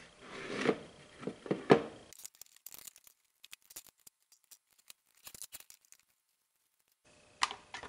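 Hands handling hard plastic helmet shells and spring clamps on a wooden bench: a few sharp clicks and knocks in the first two seconds, then only scattered faint clicks.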